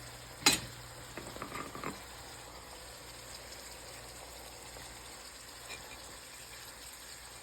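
Minced beef sizzling faintly in a frying pan, with one sharp knock about half a second in and a few light clinks soon after as the spices are added.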